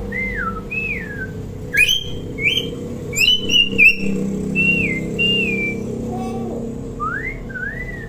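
Hill myna whistling: a run of clear whistled notes, most sliding downward and a few rising near the end, with several sharp clicking notes in the middle.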